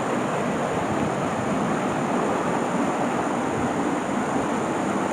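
Small woodland stream and little waterfall rushing steadily over rocks.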